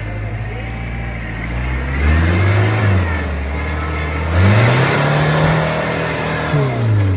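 Modified Toyota Hilux rock crawler's turbo-diesel engine revving hard twice under load on a muddy hill climb, dropping back to low revs between and after the surges. A rushing noise rides along with the revs.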